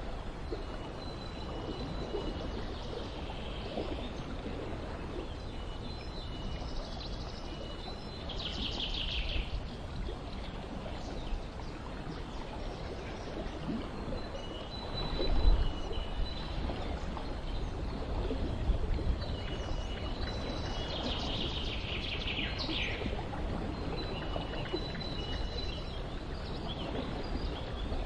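Birds chirping over a steady background wash: short high calls recur throughout, with two louder, quick descending trills about eight and twenty-one seconds in. A brief low rumble about fifteen seconds in is the loudest moment.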